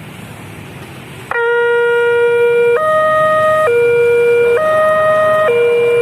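Railway level-crossing warning siren starting about a second in: an electronic two-tone alarm switching back and forth between a lower and a higher tone, each held for just under a second, over road traffic noise. It sounds as the crossing closes for an approaching train.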